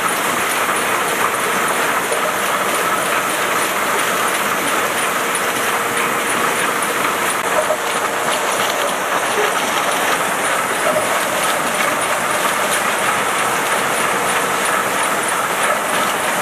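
Bottling and labelling line running: a steady, dense mechanical clatter of machinery and bottles with faint rapid clicks, cutting off abruptly at the end.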